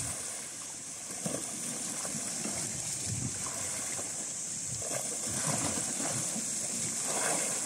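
Sea water lapping and gurgling against shoreline rocks in small, irregular splashes, over a steady high hiss.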